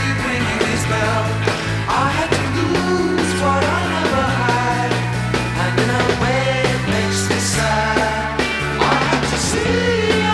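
Late-1960s psychedelic rock band recording: a stepping bass guitar line and drums with cymbal crashes under a melodic line that bends in pitch.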